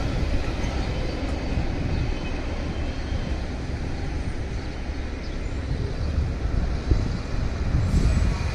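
Low, steady rumble of a Norfolk Southern freight train moving away from a grade crossing, dying down through the middle and swelling again near the end.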